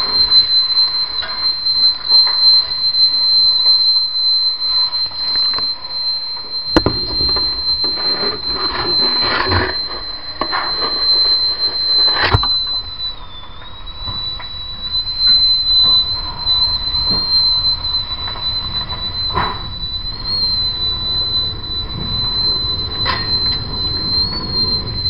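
A continuous shrill alarm tone holds steady, dipping briefly in pitch about halfway through, over rushing noise at a fire scene, with a few sharp knocks.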